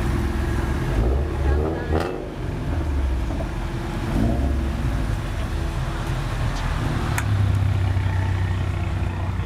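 Car engines running at idle, with two short revs about a second and a half in and about four seconds in. A louder steady engine drone comes in near the end, with voices in the background.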